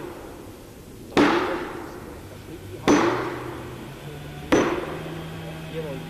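Felling wedge being driven into the back cut of a standing tree with heavy hammer blows: three strikes about a second and a half apart, each echoing. Each blow drives the wedge deeper to tip the tree toward its fall.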